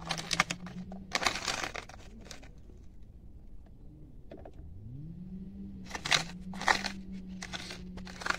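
A spoon scraping and scooping in a small plastic tub, in several short scratchy bursts. Under it runs a steady low hum like a motor, which drops away and comes back with a rising pitch about five seconds in.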